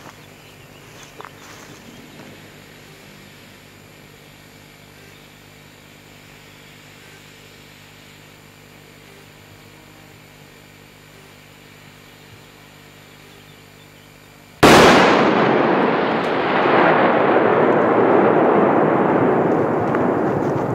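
A large firecracker blast goes off about two-thirds of the way in: one sudden, very loud bang, followed by a long rushing rumble that slowly dies away. Before the bang there is only a quiet outdoor background.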